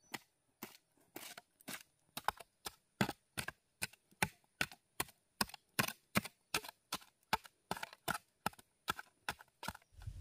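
Steady chopping with a blade, sharp strokes coming about three a second, lighter at first and harder from about two seconds in.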